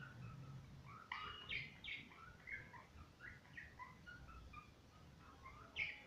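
Budgerigars chattering softly: a string of short chirps and warbles, busiest about a second in and again near the end.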